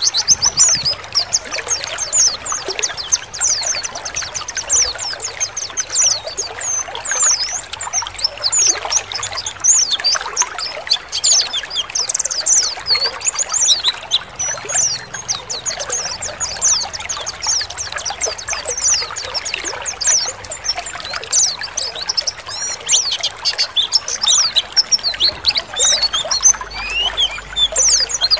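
A chorus of many white-eyes (pleci) singing together in a dense, fast stream of high chirps and twitters, the rapid 'ngalas' song, over a steady sound of trickling water.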